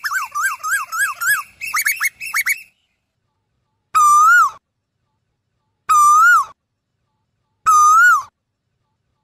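Asian koel calling: a quick run of short whistled notes for about the first two and a half seconds, then single clear whistled notes about every two seconds, three times.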